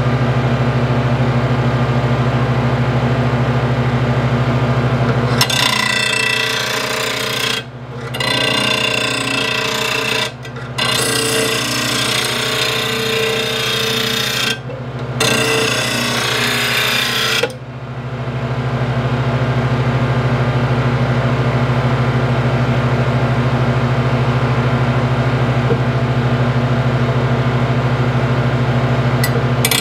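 RBG 712 blade grinder's motor running with a steady hum; from about five seconds in, a steel lawn mower blade is held to the spinning grinding disc in four grinding passes with brief breaks between them, sharpening its cutting edge. After the fourth pass the motor runs on alone.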